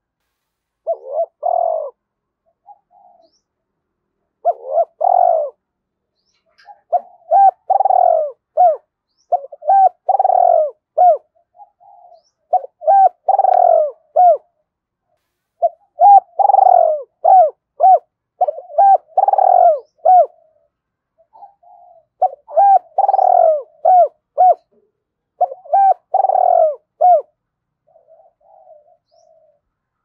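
Spotted dove cooing: about nine short phrases of several hooked coo notes each, repeated every two or three seconds, with a few soft, faint notes between phrases.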